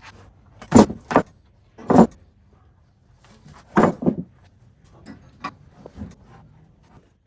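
A few scattered knocks and clunks, sharp and brief, some in quick pairs, with quiet between them.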